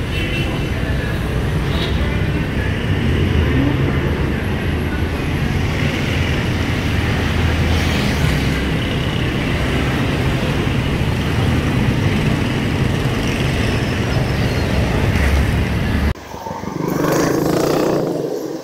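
Roadside traffic: motorcycles and a motorcycle-sidecar tricycle going by, with a steady low rumble. About sixteen seconds in it cuts abruptly to a different road noise.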